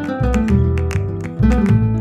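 Background music: a quickly strummed acoustic guitar over a steady pulsing bass line.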